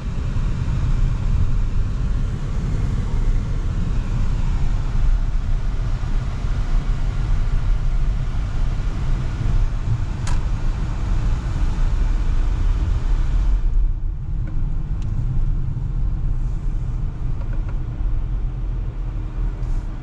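Steady road and engine rumble inside a moving car's cabin, with a hiss over it that drops away about 14 seconds in, leaving a lower rumble. A single click about 10 seconds in.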